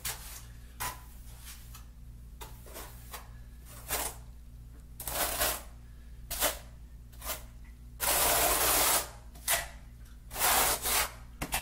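Notched trowel scraping and combing wet thinset mortar over a wooden subfloor in irregular strokes, short ones at first, then a longer stroke of about a second about eight seconds in and another near the end. A steady low hum runs underneath.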